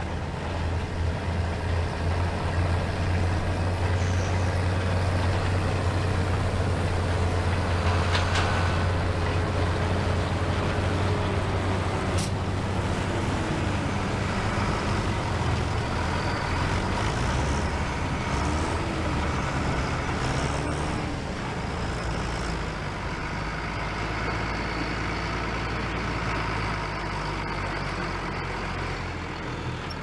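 Case IH 1455 XL tractor's diesel engine running steadily, its low note dropping lower a little past halfway. A single sharp click is heard about a third of the way in.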